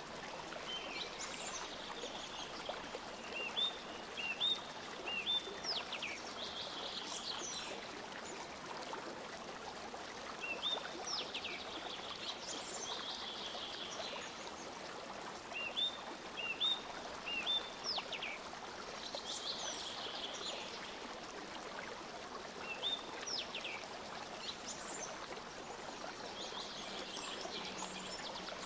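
Birds chirping in short high phrases that recur every few seconds, over a steady even hiss like running water.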